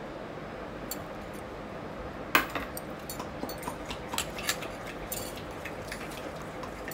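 Spatula clicking and tapping against a glass mixing bowl as hung curd is beaten: one sharp knock about two seconds in, then a quick irregular run of light clicks that stops near the end, over a low steady room hum.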